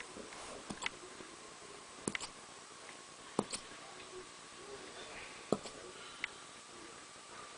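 Boxer puppy hiccuping: about five short, sharp hiccups, one every second or two.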